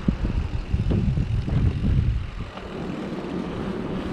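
Wind rumbling over the microphone while riding a bike along a dirt trail, with tyre and trail noise under it; gustier in the first two and a half seconds, then steadier.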